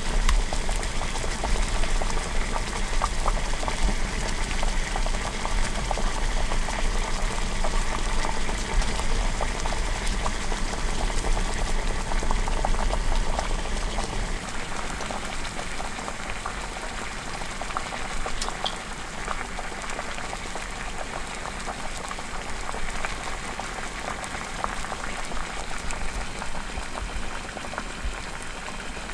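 Water boiling hard in a square metal pot on a portable gas stove: a steady bubbling crackle that eases slightly about halfway through.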